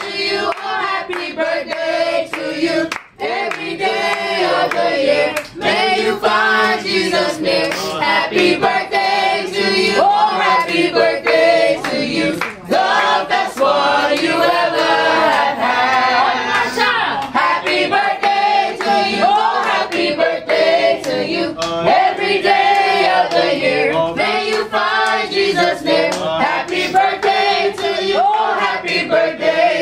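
A room full of people singing a birthday song together in chorus, with hand claps along the way.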